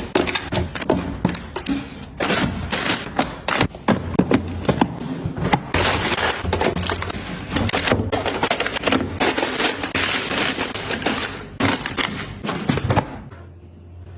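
A dense, rapid run of small clicks and knocks with stretches of rustling, like objects being handled and set down. It stops about thirteen seconds in, leaving a low steady hum.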